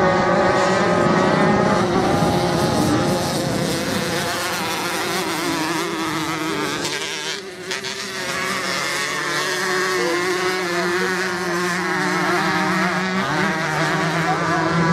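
Several off-road motorcycle engines racing on a sand course, revving with pitch rising and falling as the riders work the throttle. There is a short lull about seven seconds in.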